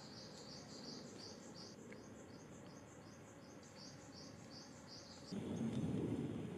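High-pitched chirping repeated about four times a second, stopping about five seconds in, from a small unseen animal. A louder burst of low rumbling noise follows.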